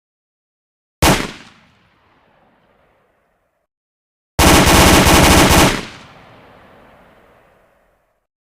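Gunshot sound effect: a single loud shot about a second in that rings away over about a second, then a burst of rapid automatic fire lasting about a second and a half, followed by a fading echo.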